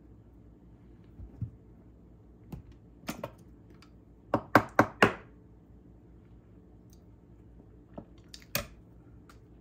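Scattered clicks and knocks of a utensil against dishware, with a quick run of four sharp clicks about halfway through and a couple more near the end.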